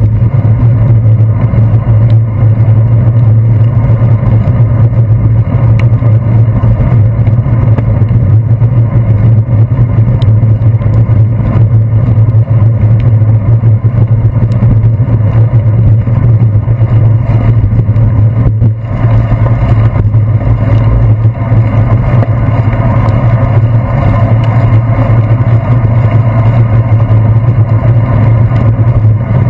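Steady, loud rumble of wind and road vibration picked up by a handlebar-mounted GoPro Hero 2 in its housing while cycling on wet pavement.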